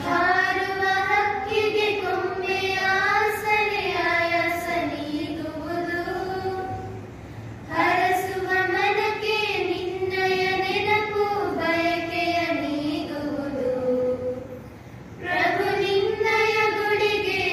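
A group of schoolgirls singing a prayer song together into microphones, with no instruments, in long held phrases with short breaths about seven and fourteen seconds in.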